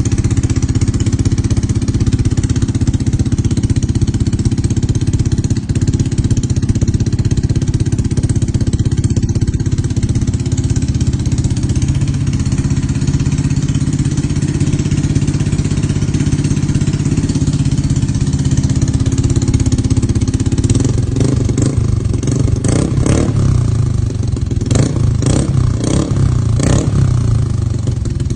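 Motorcycle engine running steadily through an aftermarket Daeng-style replica exhaust pipe during a sound test. Several short sharp sounds come in over the last several seconds.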